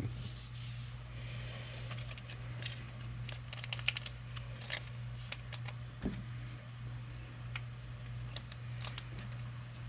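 Scattered light clicks and rustles from handling at a table, over a steady low electrical hum.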